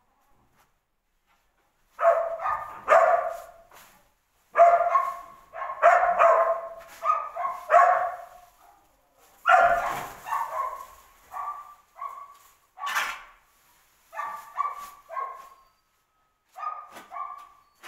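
A dog barking in quick runs of short barks with brief pauses between them, starting about two seconds in.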